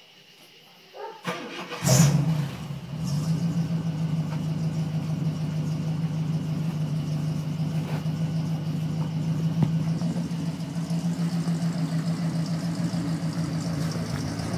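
1979 International Harvester Scout's 345 V8, breathing through new Thrush glasspack mufflers, is started. The starter cranks briefly and the engine catches about two seconds in with a short flare, then settles into a steady idle.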